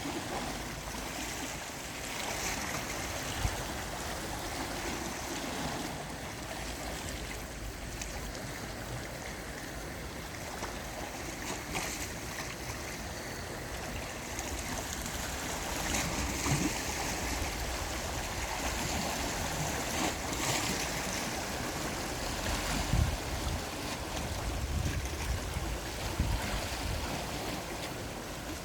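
Gentle sea waves washing in: a steady wash of surf that swells and eases, with a few short low thumps now and then.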